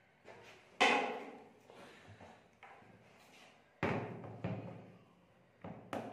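Sharp knocks of objects being handled and set down on a tabletop, among them a plastic digital kitchen scale put down; four knocks, the loudest about a second in, each dying away quickly.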